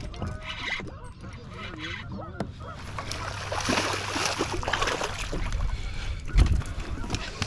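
Geese honking over a low rumble, with a stretch of hiss in the middle and a loud thump near the end.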